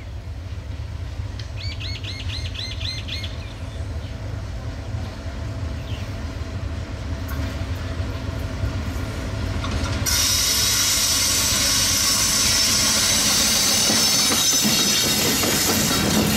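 WDM-3A ALCO diesel locomotive hauling an express train, approaching with a low engine rumble that grows slowly louder. About ten seconds in, the locomotive passes and the passing coaches' wheels on the rails add a sudden loud, high rushing noise.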